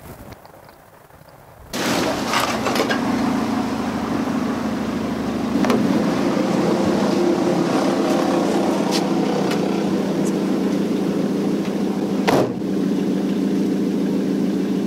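A car engine idling, steady, coming in abruptly a couple of seconds in. Scattered clicks and knocks are laid over it, with one sharp knock about twelve seconds in.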